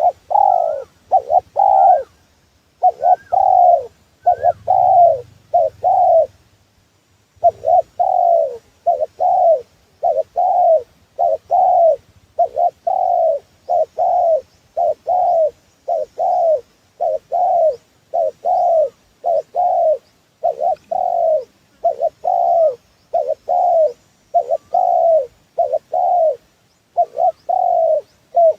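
Spotted dove (tekukur) cooing as a trapper's lure call: a long, steady series of short, mellow falling coo notes, about one and a half a second, with two brief pauses near the start.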